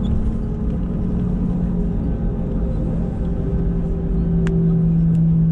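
Airbus A320 heard from inside the cabin while taxiing: the jet engines run at low thrust as a steady low rumble with a hum, growing a little louder about four seconds in.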